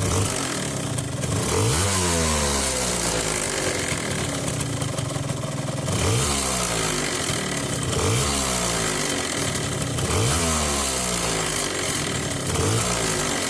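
Gilera Runner 180's two-stroke scooter engine, freshly built, blipped over and over: the revs climb and fall back about every two seconds between short spells of steady running. It carries the weird noise that the owner is trying to show on the new engine.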